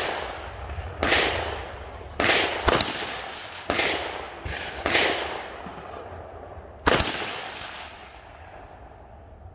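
Rifle fired about seven times at an uneven pace, two of the shots close together. Each sharp crack trails off in an echo, and the last comes after a pause of about two seconds.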